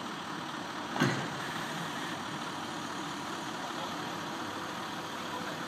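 Heavy diesel engine running steadily as a mobile crane hoists a precast concrete beam off a flatbed trailer, with one sharp knock about a second in.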